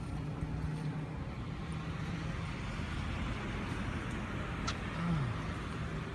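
Steady road traffic noise with a low engine hum, and a brief click near the end.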